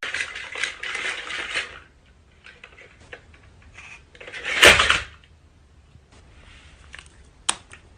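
Household clatter: a scraping rustle, then scattered light knocks, a louder clatter just before the five-second mark and a sharp click near the end.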